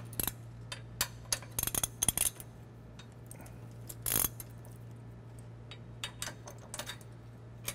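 Irregular metallic clicks and clinks as the hand tool cranks an air cart's tank slide gate, with a short scraping rasp about four seconds in, over a steady low hum.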